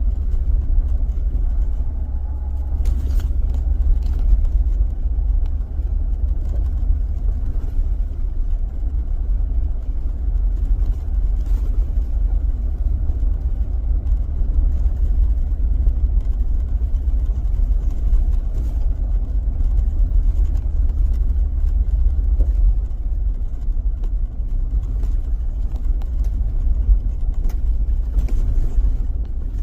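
A car driving along a road, a steady low rumble of road and engine noise.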